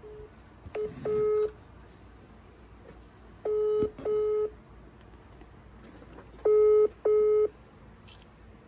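Mobile phone call ringback tone, the double-ring pattern: a steady pitched beep sounding twice in quick succession, repeated about every three seconds while the call rings unanswered.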